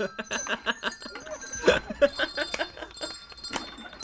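Coloured handbells rung in quick turns, picking out a simple tune note by note, with laughter over it.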